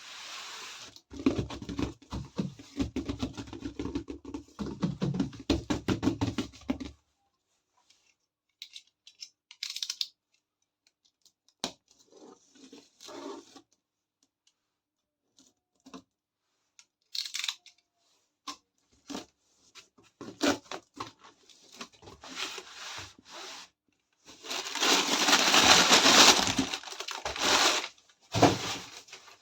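Toy packaging being opened: plastic and cardboard rustling and tearing in two longer loud stretches, one near the start and one near the end, with scattered clicks and taps of small plastic pieces between them.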